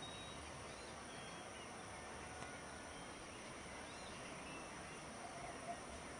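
Faint, steady outdoor background noise with a few short, distant bird chirps scattered through it.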